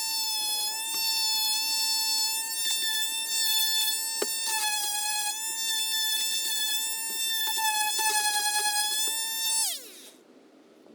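A small handheld electric power tool's motor running with a steady high whine, with a few light clicks of the tool against the work. Near the end it is switched off and the whine drops quickly in pitch and dies away.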